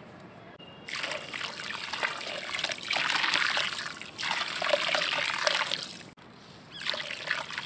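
White sand poured in a stream into a bucket of water, a pouring patter on the water's surface. It starts about a second in, dips briefly, cuts off just after six seconds, then starts again near the end.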